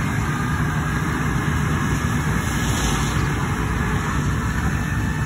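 Flatbed tow truck's engine running steadily at idle, a constant low hum.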